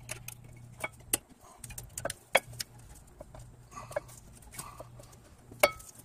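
Sharp metallic clicks and clinks of brake pads and their wear-indicator clip being handled and seated into a rear brake caliper bracket, the loudest about two and a half seconds in and just before the end. A faint low hum runs underneath.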